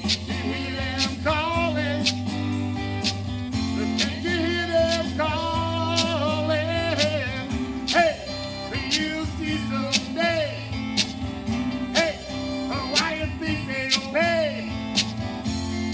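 A man singing a country-style song, his voice wavering in vibrato, over guitar and bass accompaniment with a steady beat.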